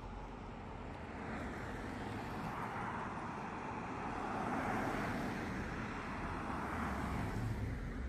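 A car driving past, its tyre and engine noise swelling to a peak about halfway through and then fading.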